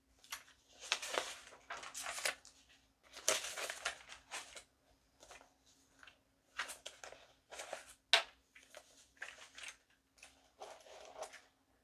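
Paper being handled and shuffled, rustling and crinkling in irregular bursts, with a sharper crackle about eight seconds in.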